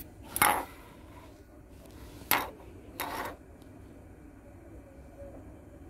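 Handling noise: three short rubbing knocks as the recording phone is moved by hand. The loudest comes about half a second in, a sharper one a little after two seconds, and a weaker one about a second after that.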